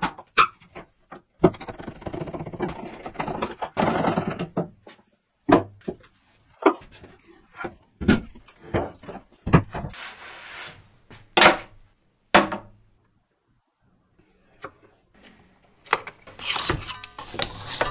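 Workshop handling noises from a wooden dresser carcass being unscrewed and moved about on a workbench: a series of sharp wooden knocks and clicks with scraping. Near the end, a rasping metal scrape on a steel blade clamped in a bench vice.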